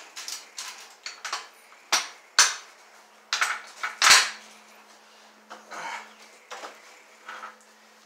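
Metal tools and hardware being handled: a series of sharp clinks and knocks, the loudest about two and four seconds in.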